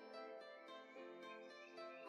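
Soft background music played on a plucked string instrument, a melody of short notes.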